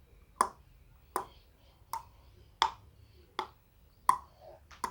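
Imitated horse hoof-beats: a steady clip-clop of sharp clicks, seven of them, about one every three quarters of a second.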